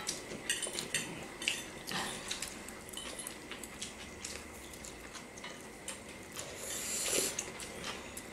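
Forks clicking and scraping against ceramic plates as several people eat noodles, with many small irregular clinks, and a short hissing noise about seven seconds in.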